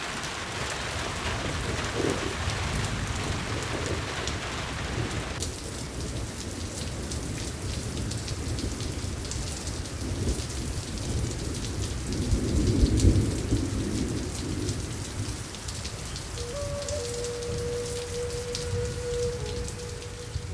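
Steady rain falling, with a low rumble of thunder that swells and peaks about two-thirds of the way through. Near the end, soft sustained music tones fade in over the rain.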